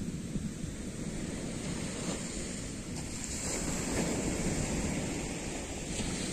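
Small waves breaking and washing up a sandy beach in a steady surf, swelling a little about halfway through, with wind rumbling on the microphone.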